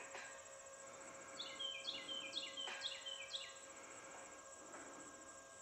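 A songbird singing one phrase of quick descending whistled notes, repeated about five times, over a steady chorus of crickets and a faint steady hum, with a couple of faint clicks.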